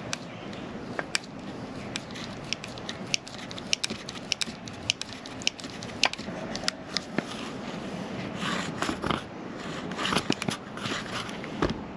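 Hand-lever grease gun being pumped, making short, sharp irregular clicks, a few a second, as it forces grease into a brake caliper to push out a seized piston. Rustling and scraping of hands handling the caliper near the end.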